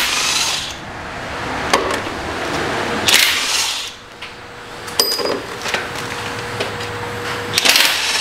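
Air impact wrench run in three short bursts, each under a second and a few seconds apart, working on engine bolts. Between the bursts are clinks and knocks of tools on metal.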